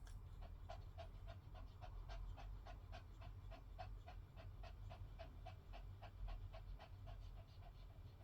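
Poodle with a collapsed trachea panting quickly and evenly, about four breaths a second.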